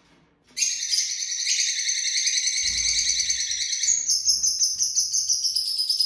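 Lovebirds chirping: a fast, unbroken high-pitched chatter of rapid repeated notes that starts about half a second in and shifts in pitch about four seconds in.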